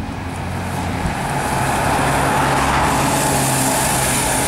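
Alexander ALX400 double-decker bus driving past at speed: a steady diesel engine hum under tyre and road noise. It grows louder about a second in as the bus draws level and stays loud as it goes by.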